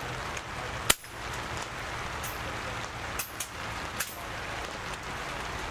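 PCP air rifles firing along a benchrest line: sharp pops at irregular intervals, the loudest about a second in and several fainter ones between three and four seconds in, over a steady background hiss.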